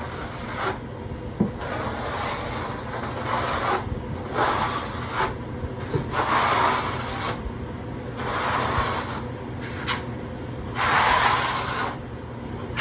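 A trowel scraping through rapid-setting thinset mortar, in about nine irregular rasping strokes of half a second to a second each. This is the sound of mortar being spread and worked for setting Schluter Ditra membrane.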